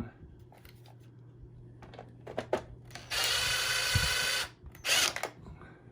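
Power drill-driver running in two bursts, a steady whine of about a second and a half followed by a brief second burst, as it drives a screw back into a vacuum cleaner's plastic housing. A few small handling clicks come before it.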